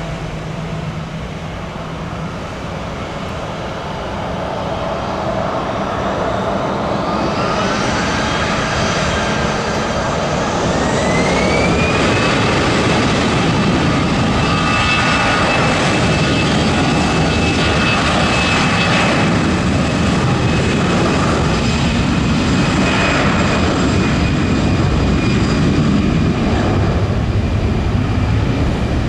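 Jet airliner engines spooling up to takeoff thrust: a whine rises in pitch and the rumble grows louder over several seconds, then both hold steady and loud from about 12 seconds in.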